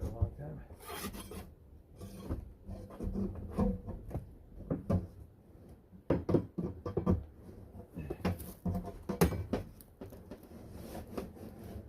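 Irregular scraping and rubbing of wood, broken by many sharp knocks and clicks.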